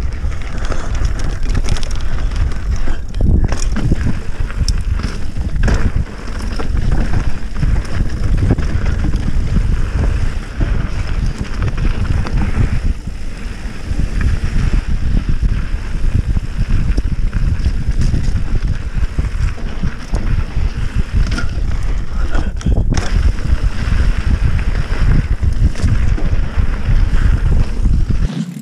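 Mountain bike riding fast down a dirt singletrack: a low wind rumble on the microphone with tyre noise on dirt and rattles and knocks from the bike over roots and rocks.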